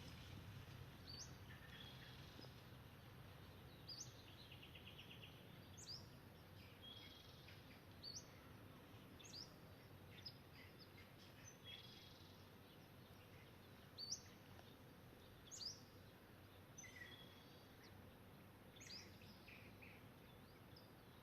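Faint songbirds chirping: short, sharp high notes every second or two, with a brief rapid trill, over a soft steady low background hum.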